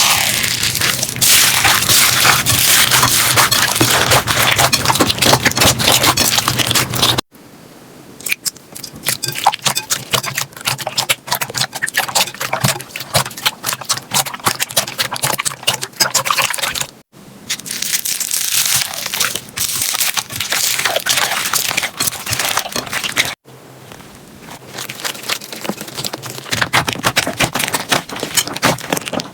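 Slime being squeezed, poked and stretched by hand, making dense crackling and popping clicks. The sound changes abruptly three times as one clip cuts to the next.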